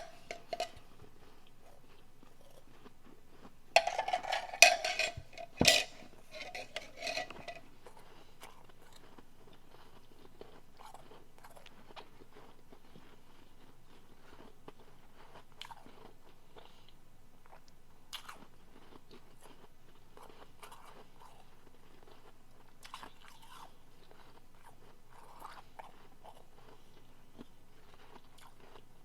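A person biting and chewing soft refrozen powdery blender ice. There is a short crunch at the start, a loud run of crunching bites about four to seven seconds in, then only quiet, scattered chewing clicks.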